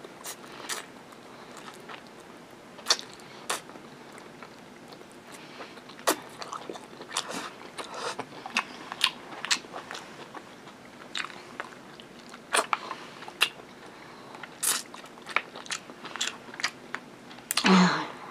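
Close-up chewing of a mouthful of fried rice: irregular wet smacks, clicks and crunches of a person eating. Near the end there is a louder burst of mouth noise.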